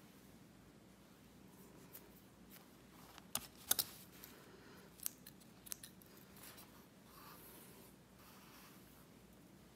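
Scissors snipping embroidery floss: a few quick, sharp snips about three and a half seconds in, followed by a couple of lighter clicks.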